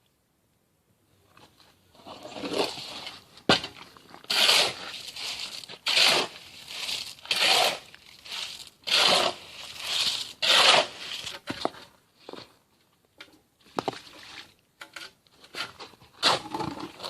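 Scraping and crunching of a hand tool working through wet concrete mix with sand and stone. It comes in repeated strokes about every second and a half, then more sparsely, with a few sharp knocks.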